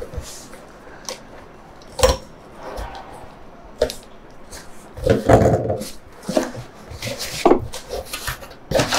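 Handling noise from a drone's retail packaging being moved and opened: scattered rubbing and scraping with sharp knocks about two seconds in and just before four seconds, and a louder stretch of rubbing and rustling around five seconds in.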